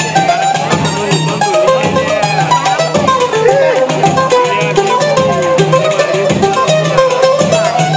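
Live acoustic music of plucked strings, a guitar and a small high-pitched instrument like a cavaquinho or bandolim, strummed and picked in a steady rhythm, with a voice singing a wavering melody over them.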